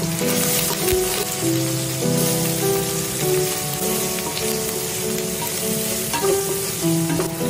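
Hot oil sizzling and frying in a pan as a tempering of seeds, lentils, curry leaves and green chillies is stirred with a wooden spatula. A melody of background music plays over it.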